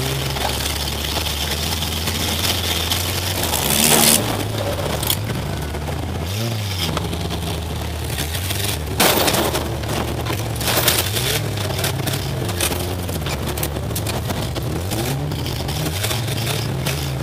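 Demolition derby car's engine revving up and down, heard from inside the cab, with two loud crashes of metal about four and nine seconds in and clattering and scraping between them.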